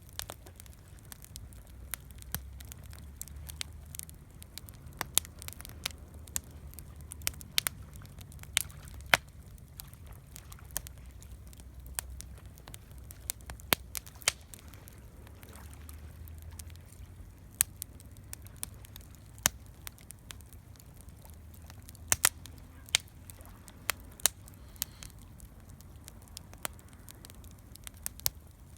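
Wood campfire burning, crackling with irregular sharp pops, several of them loud, over a low steady rumble.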